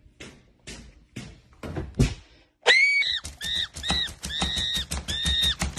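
Brooms swishing and whacking in a handful of separate hits. About two and a half seconds in, a loud, high-pitched squealing starts, in repeated drawn-out notes over rapid knocking.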